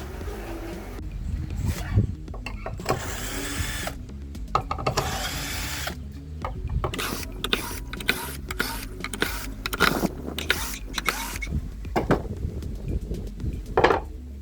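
Power drill or driver running in short bursts, its motor whining up and down, amid scattered knocks and clatter of tool work on the wooden speaker box.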